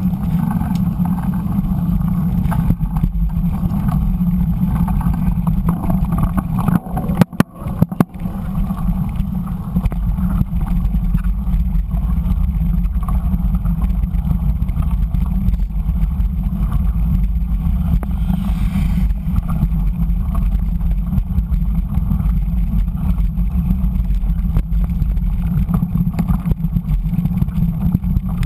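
Steady low rumble of a mountain bike rolling fast over a wet dirt road, heard through a bike-mounted action camera: tyre and road noise mixed with wind. About seven seconds in, the rumble briefly drops out and a few sharp clicks are heard.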